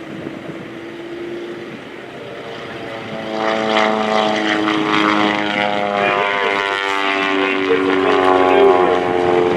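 Taylorcraft T-Clips light airplane's propeller engine droning in flight, growing louder about three seconds in, its pitch shifting slightly as it comes by.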